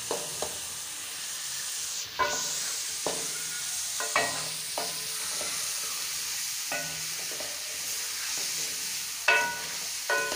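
Chicken pieces frying in ghee with a steady sizzle, while a wooden spatula stirs them and knocks against the metal pot. Each knock rings briefly, and the loudest comes near the end.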